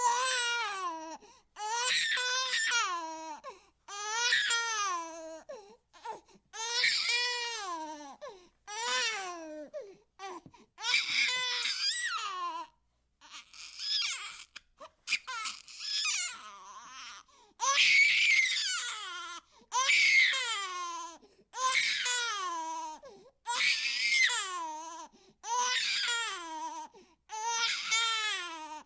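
Infant crying: a run of wails, each one to two seconds long and falling in pitch at its end, with short catches of breath between, about one every two seconds.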